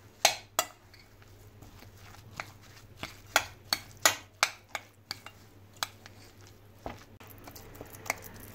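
A metal spoon stirring a thick, crumbly muhammara mixture in a glass bowl, knocking against the glass in irregular sharp clinks, about a dozen in all.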